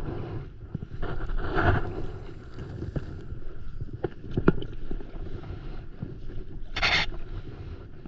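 Water lapping and splashing around a stand-up paddleboard as it is paddled, with a low wind rumble on the microphone and a few light knocks near the middle. A short, loud hissing splash comes about seven seconds in.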